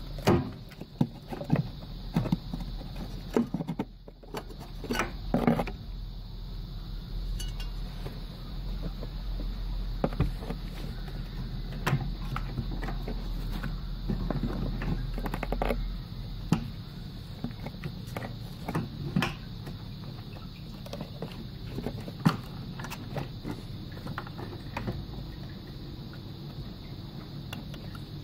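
Irregular clicks, knocks and scrapes as hands work the plastic fuel pump module loose from the fuel tank opening and lift it out.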